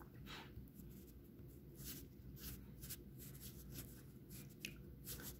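Very quiet room tone: a low steady hum with scattered faint, brief scratches.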